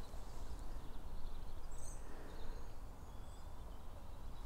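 Faint outdoor ambience: a steady low rumble with a few faint, high bird chirps, a small cluster of them about two seconds in.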